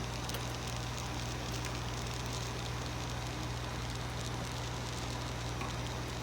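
Continuous inkjet printer running with its ink system on: a steady low hum with an even hiss over it from the pump and ink circulation.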